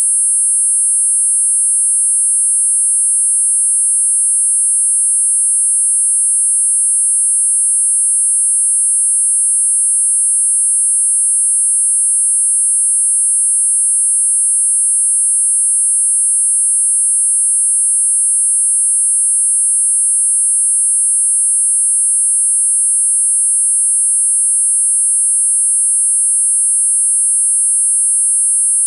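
Four steady electronic sine tones at 8.5, 9, 10 and 10.5 kHz sounding together as one constant, unchanging high-pitched whine: a multi-tone tinnitus masker.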